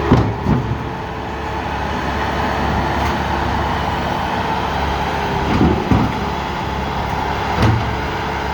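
Skid steer engine running steadily under load as it presses on a metal drum, with a few knocks, a pair just after the start, two more about six seconds in and one near the end; the drum holds rather than crushing.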